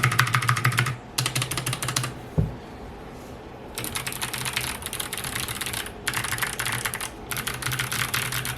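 Mechanical keyboard with Kailh Box Jade clicky switches (a GMMK Compact) typed on fast, each keystroke a sharp click. The typing comes in five quick bursts with short pauses between them, and a single dull thump falls about two and a half seconds in.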